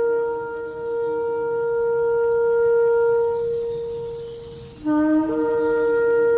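Shofar blowing: a long held blast on one steady pitch that fades out nearly five seconds in, then a new blast that opens with a short lower note before jumping up to the same held pitch.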